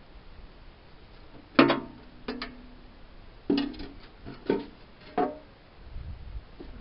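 Pieces of metal knocked together five times, about a second apart, each strike ringing briefly.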